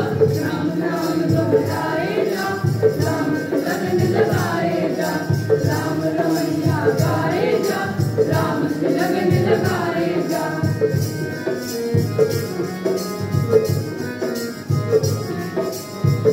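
A group of children singing a devotional song together, accompanied by harmonium and a steady beat of jingling hand percussion.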